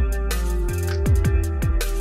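Electronic background music with a steady beat: punchy kick drums that drop in pitch, a crisp hi-hat and sustained synth tones.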